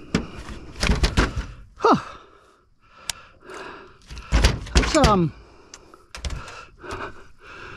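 Repeated thuds and knocks against a small boat's hull and deck while a big blue salmon is landed. They come in clusters near the start, about halfway through and again a second later. Short grunts break in between.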